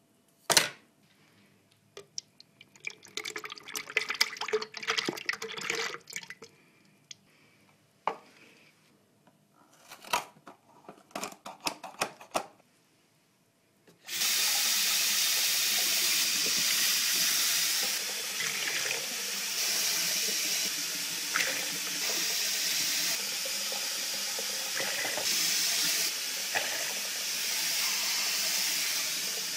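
Scattered clicks and crinkling as a cardboard juice carton is handled. About halfway through, a kitchen tap is turned on and water runs steadily into a stainless-steel sink.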